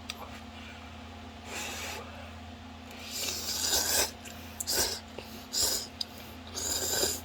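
A person slurping instant ramen noodles, about five separate slurps, the longest and loudest about three seconds in. A steady low electrical hum runs underneath.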